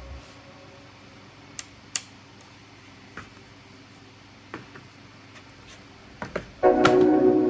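A few scattered small clicks and taps from a laptop being handled and worked on during a RAM upgrade. Then background music comes in abruptly near the end and is the loudest sound.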